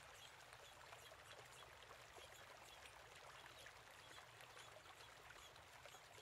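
Near silence: a faint, steady background hiss with tiny scattered ticks.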